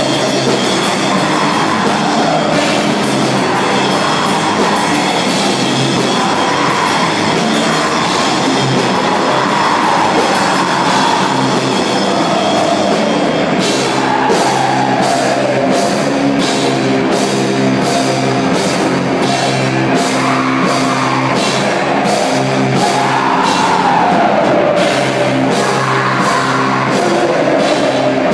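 Live rock band playing loud, with drum kit and a wavering melodic line. About halfway through, a steady beat of sharp cymbal-and-drum hits comes in.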